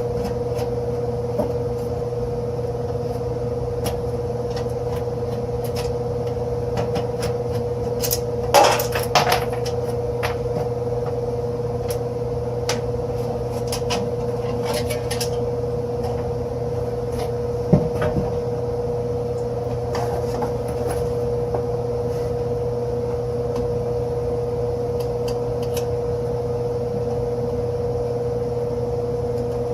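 Steady humming from the powered-up furnace equipment, even throughout, with a few clicks and knocks of handling a bit under ten seconds in and once more around eighteen seconds.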